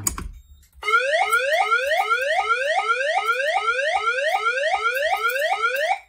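Fire alarm system speaker sounding a tornado alert tone: a loud, repeating rising sweep, about three sweeps a second. It starts about a second in, once the blue emergency push button has been pressed, and cuts off at the end.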